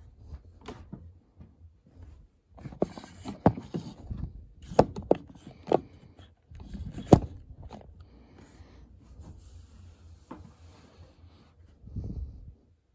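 Close handling noise of a camera being moved and repositioned: rustling and bumping against the microphone, with several sharp knocks in the middle.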